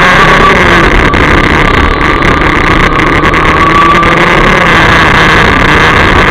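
Rotax DD2 racing kart's 125 cc two-stroke engine running at high revs, heard on board at close range, very loud. Its pitch rises and falls slightly as the kart runs down a straight and turns into a corner.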